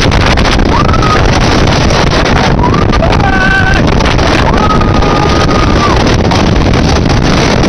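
Loud rush of wind over a phone microphone and the rumble of a wooden roller coaster train running at speed, with riders screaming three times over it, the longest about halfway through.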